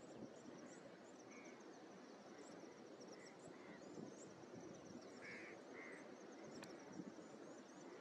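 Faint natural outdoor ambience: a steady scatter of thin, high-pitched chirps, with a handful of short lower calls, the clearest a pair about five seconds in, over a low background hush.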